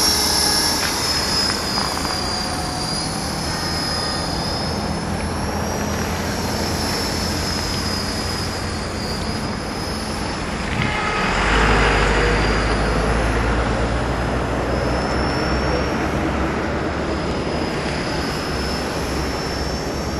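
450SE V2 electric RC helicopter in flight: a high motor-and-rotor whine that wavers slightly in pitch as it manoeuvres, over a steady low rumble. About halfway through, a louder rushing noise swells for a couple of seconds.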